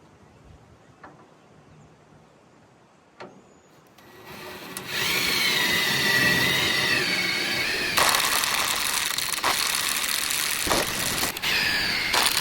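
Power drill boring mounting holes into the metal of a flatbed. After a few quiet seconds with faint clicks, the drill starts about four seconds in and runs steadily, with a wavering high whine from the bit cutting metal and a couple of brief dips near the end.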